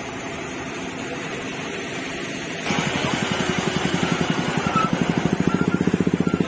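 Steady road noise, then about three seconds in a vehicle engine running close by takes over. It has a rapid, even beat of about ten pulses a second and grows a little louder toward the end.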